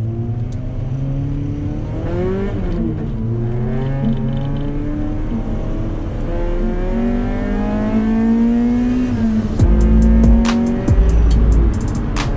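Car engine accelerating, its pitch climbing and dropping back several times. From about two-thirds of the way in, music with a heavy deep bass and a steady clicking beat comes in over it.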